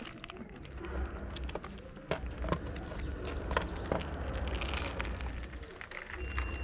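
Two cats eating wet cat food from a plastic tray: many short, wet chewing and lapping clicks. A steady low rumble lies underneath.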